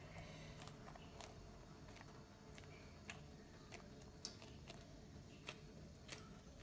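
Near silence with faint, scattered soft clicks at irregular intervals as hands pat and press soft almond burfi dough flat on a greased plastic sheet.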